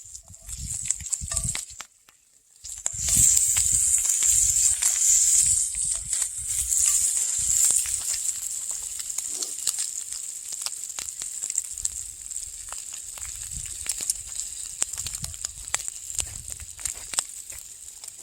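Bacon frying in a cast iron skillet over an open fire: a steady high sizzle full of crackling pops. After a brief hush about two seconds in, it swells to its loudest, then slowly eases off.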